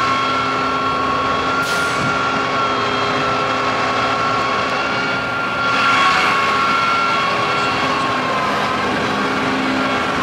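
A truck's engine running steadily, with short hisses about two seconds in and again near six seconds.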